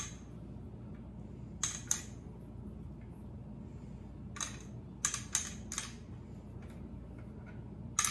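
Vitamin tablets dropped one at a time into a plastic pill organizer's compartments, each landing with a sharp click, about eight irregular clicks in all.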